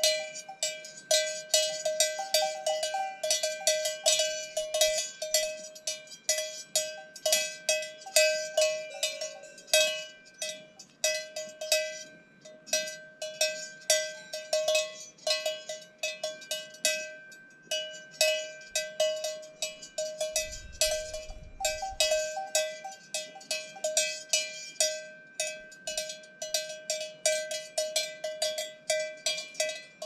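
Cowbells on cattle clanking irregularly, several strikes a second, each ringing briefly.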